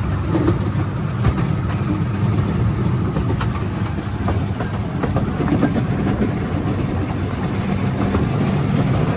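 Small narrow-gauge rail car, the Wulai tourist trolley, running along its track: a steady low rumble with light rattling and clicks.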